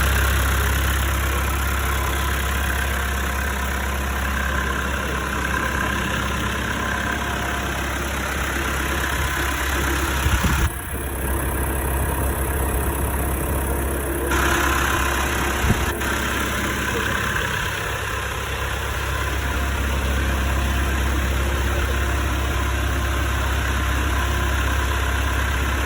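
The freshly overhauled diesel engine of a John Deere 310SE backhoe loader idling steadily. Two short knocks are heard, about ten seconds in and again near the middle.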